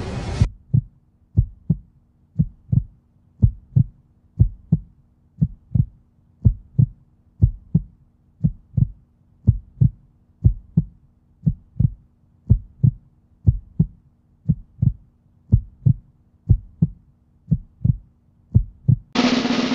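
Heartbeat sound effect: pairs of low thumps about once a second, over a faint steady hum.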